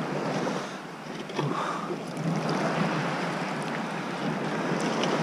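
Shallow sea water sloshing and washing around, with a sharper splash about a second and a half in.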